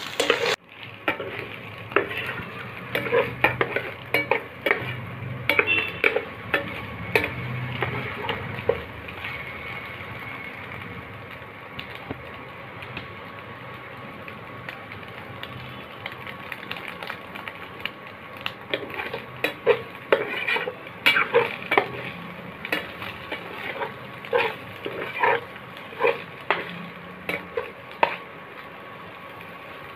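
A spatula stirring and tossing egg and chicken pieces in a hot pan, with frequent scrapes and clacks against the pan over a steady sizzle. The stirring pauses for several seconds in the middle, leaving mostly the sizzle, then picks up again.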